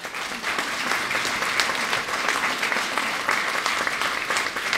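Conference audience applauding: steady, dense clapping from many hands that starts suddenly as the talk ends.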